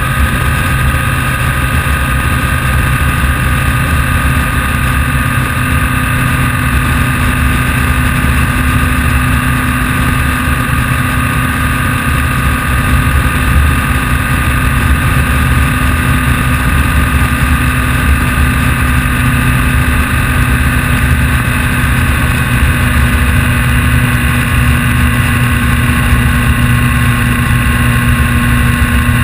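Vehicle engine running steadily while riding, at an even speed with no revving up or down.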